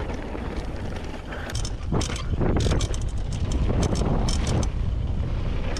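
Mountain bike descending rough trail at speed: wind rushing on the microphone and tyres rumbling, with frequent sharp clacks and rattles from the bike over bumps, busiest from about two seconds in.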